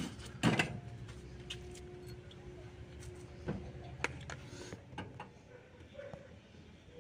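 Metal tool clicks and taps on a split air conditioner's outdoor-unit service valve as a wrench is fitted and turned, with one louder knock about half a second in.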